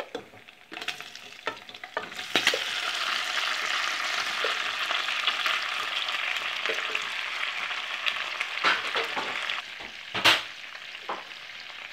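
Hot oil in a frying pan with diced bacon sizzling as freshly boiled, wet rigatoni are tipped in. The sizzle starts about two seconds in, holds steady, and dies down near ten seconds, where there is a single sharp knock.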